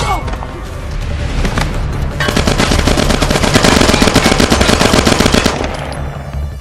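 Sustained burst of automatic gunfire, rapid shots running together for about three seconds, starting about two seconds in, with a film score underneath.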